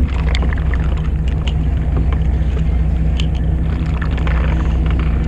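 Fishing boat's engine running steadily with a low hum, with a few light clicks and taps from tackle being handled, most of them in the first three seconds.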